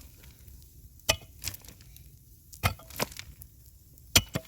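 Six sharp knocks of a tool striking wood, coming in three close pairs about one and a half seconds apart.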